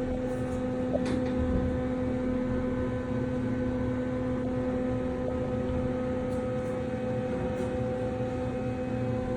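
Elevator cab running between floors: a steady, even hum with a low rumble, and a small click about a second in.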